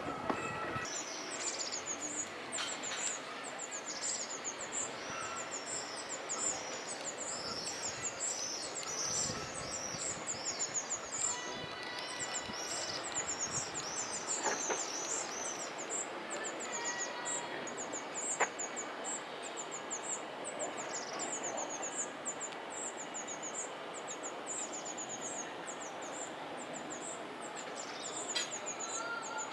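Birds chirping: short high-pitched chirps repeating several times a second, with some lower arching calls in the first third, over a steady outdoor background noise.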